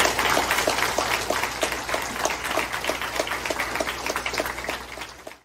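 A small crowd applauding, with one person clapping steadily close by. The applause cuts off suddenly at the end.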